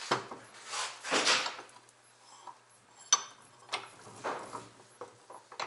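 Metal clunks and scrapes as a Honda S2000 CV axle is shifted and clamped in a steel bench vise. A sharp click comes about three seconds in, then a few lighter knocks.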